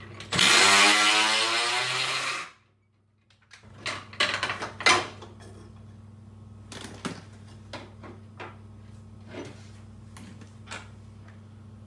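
A power tool runs for about two seconds, its pitch rising as it spins up, undoing the last 10 mm nut holding a Porsche Cayman S front wing. After a sudden break come scattered clanks and knocks as the freed metal wing panel is handled and lifted off, over a steady low hum.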